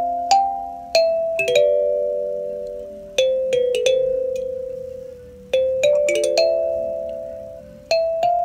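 Kalimba played slowly: metal tines plucked one at a time and sometimes two or three together, each note ringing on and fading slowly, in short phrases with pauses between them.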